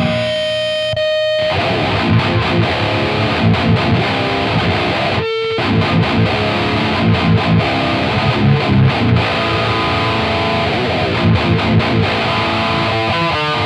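Seven-string Schecter Hellraiser Hybrid PT electric guitar playing a heavy riff with high-gain distortion through a Marshall 1960A 4x12 cabinet. It opens on a held note, and after a brief break about five seconds in the riff continues through a different 1960A: first the brand-new cab, then the old, worn-in one.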